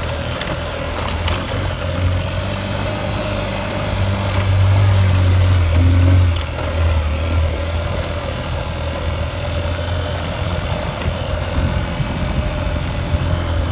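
A small motorbike's engine running as it is ridden along a rough dirt trail. It gets louder for a couple of seconds near the middle, with a few short knocks from the bumps.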